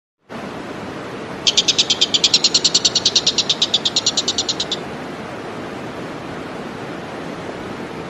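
Oriental dollarbird giving its harsh chattering call: a rapid train of about a dozen grating notes a second, starting about a second and a half in and lasting a little over three seconds, over a steady background hiss.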